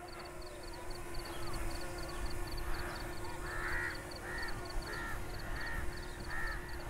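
Crows cawing in a steady run of harsh calls, about one every half second, starting a few seconds in, with a faint steady hum beneath. The crows are mobbing a drone in the air.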